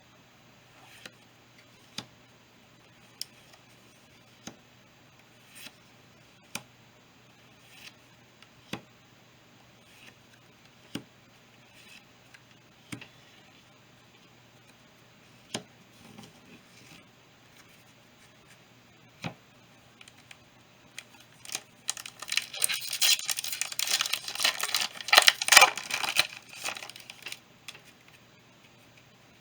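Scattered single sharp clicks, then a foil trading-card booster pack torn open and crinkled for about five seconds, near the end the loudest part.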